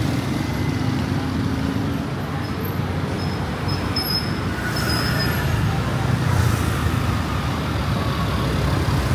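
Street traffic: a steady mix of running motor vehicle engines and road noise, swelling somewhat after the middle.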